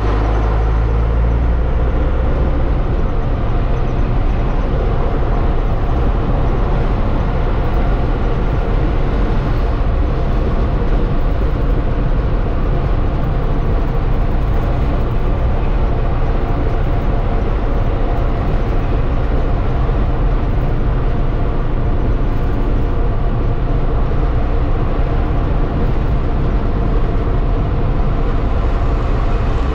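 Tatra 148 truck's air-cooled V8 diesel engine running steadily, a deep continuous rumble with no revving.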